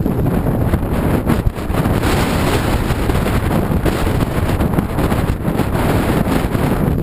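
Wind buffeting the microphone of a camera worn by a downhill skier, a steady loud rush, mixed with skis hissing and scraping over groomed snow.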